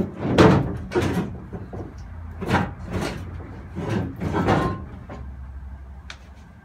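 Rummaging through a pile of stored car parts to pull out a small intercooler: a run of knocks, scrapes and clatters, loudest about half a second in, easing off in the last second or so.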